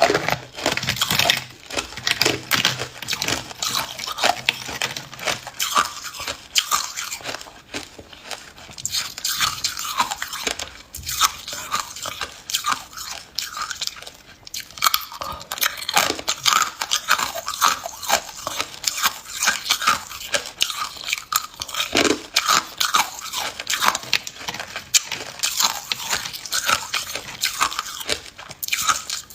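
Close-up crunching of ice cubes being bitten and chewed: dense, irregular sharp cracks and crackles, several a second.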